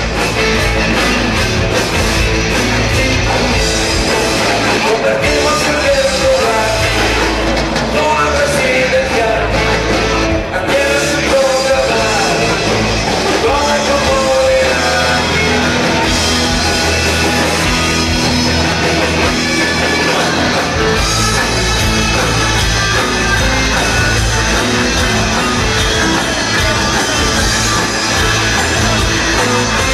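Live rock band playing loud on stage: a singer over electric guitars, bass and drums. The low bass and drums thin out for a few seconds past the middle and come back in full about two-thirds of the way through.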